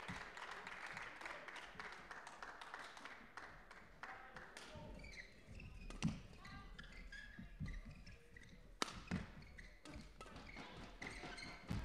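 Badminton rally: rackets striking the shuttlecock as sharp cracks, the loudest about six, nine and twelve seconds in, with shoes squeaking on the court floor between shots.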